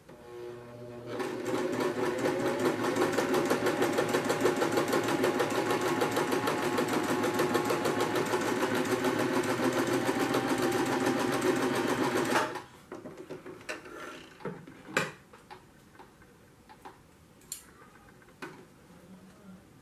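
Electric household sewing machine stitching a seam along a fabric strip. It speeds up over the first second, runs fast and even for about eleven seconds, then stops suddenly. A few light clicks and rustles follow as the fabric is handled.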